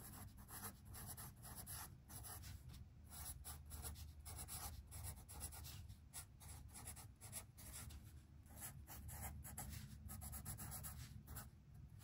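Felt-tip pen writing on sketchbook paper: faint, quick, irregular scratching strokes as the words are written out.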